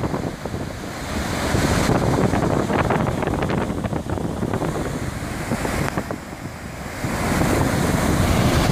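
Wind buffeting the microphone over the rush of a ferry's churning propeller wake, swelling louder in gusts about two seconds in and again near the end.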